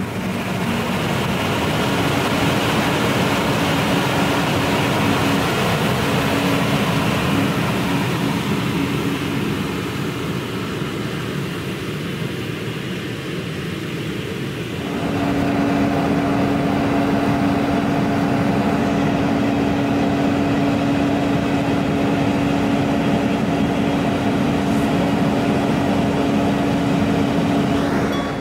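A tractor running while it tows an Agrofrost Frostbuster gas-fired hot-air frost-protection machine: a steady, noisy machine sound with a constant engine hum. It gets louder about halfway through.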